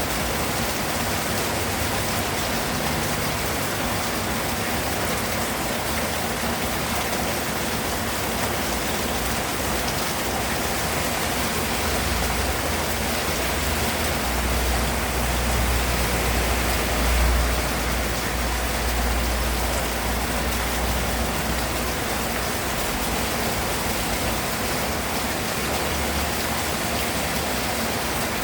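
Steady rain falling, a dense even hiss. Partway through, a low rumble swells for several seconds and fades again.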